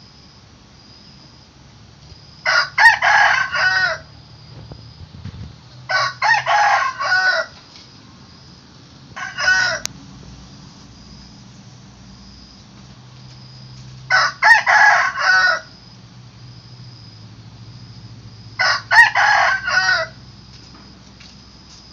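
A rooster crowing five times, each crow about a second and a half long, with a shorter one near the middle.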